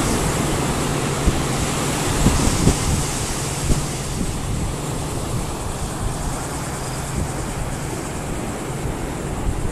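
Wind buffeting the microphone over the wash of breaking surf, with a few short knocks a couple of seconds in.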